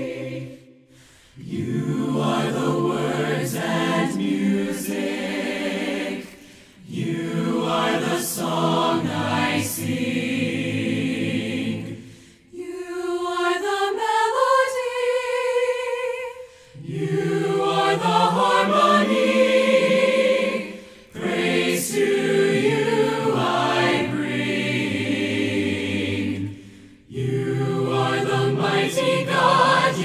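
Group of voices singing a slow praise chorus a cappella in harmony, in phrases of about four to five seconds with brief silent breaths between them. About halfway through, one rising line is sung by a single voice before the harmony returns.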